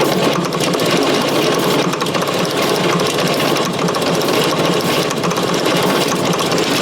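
Fordson Super Major's 3.6-litre diesel being cranked over on the starter in a fast, steady churn without catching, which then cuts off suddenly. The engine is not getting diesel, so it will not start.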